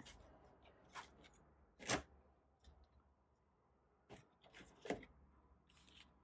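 A few light knocks and clicks as a steel ruler and a card panel are handled and laid down on a cutting mat, the two loudest about two seconds in and near five seconds.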